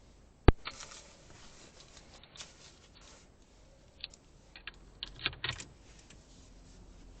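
A single sharp click, followed by scattered light clicks and knocks with a small cluster of them about five seconds in.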